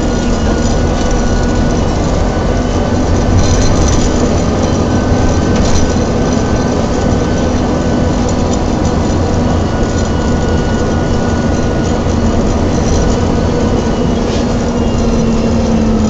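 Volvo B7TL double-decker bus heard from inside while under way: steady engine and road rumble with a whine from its Voith automatic gearbox.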